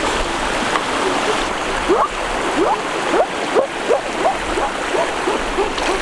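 Rushing water of a rocky stream spilling over a small cascade, a steady wash. From about two seconds in, a quick run of short rising chirps, about three a second, sounds over the water.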